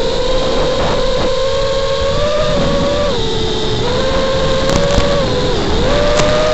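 Eachine TS215 racing quadcopter's brushless motors whining in flight, the pitch dipping and rising again as the throttle is worked, over a rough hiss of noise.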